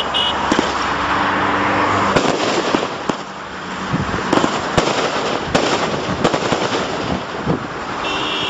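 Brightsky Show King 36-shot consumer firework barrage firing: a rapid run of sharp bangs from shots launching and bursting, over a continuous noisy hiss. It goes briefly quieter about three seconds in.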